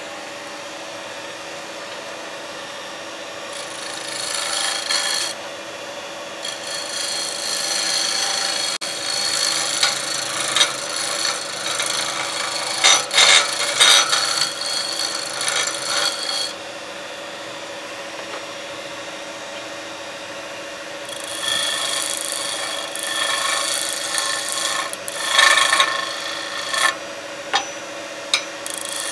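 Wood lathe running steadily while a turning gouge cuts a spinning Golden Cypress spindle, a scraping, shaving sound of steel on wood. The cutting comes in stretches of several seconds: about 4 s in, then a long stretch of about ten seconds, another from about 21 s, and again at the end. Between them only the lathe's hum is heard.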